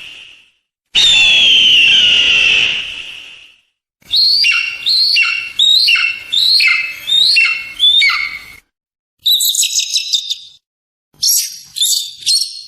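Eagle calls in separate takes: a long scream falling slightly in pitch, then a series of about eight whistled calls, each dropping sharply in pitch, then a quick high-pitched chatter and several short high chirps.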